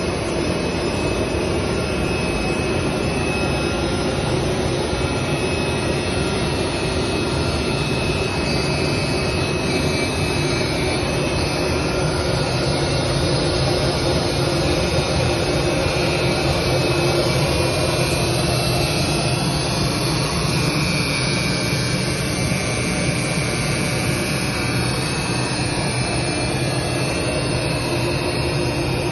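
CNC oscillating knife cutting machine running while it cuts carbon fiber fabric: a loud, steady machine noise with a constant hum that does not change.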